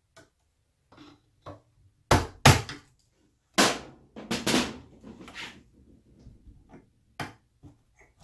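Knocks and clatter of hand work at a metal electrical box: a few sharp clunks about two seconds in, a rattling cluster a little later, then lighter knocks as a cable is handled and pushed into the box.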